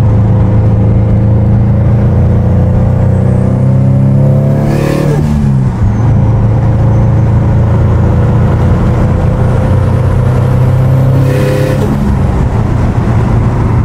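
Turbocharged 2019 Subaru STI EJ257 flat-four heard from inside the cabin, pulling on boost for the first time during engine break-in. The engine note climbs steadily with a rising turbo whistle, then drops about five seconds in with a short rush of vented boost at the gearshift. It climbs again and drops with a second rush near the end.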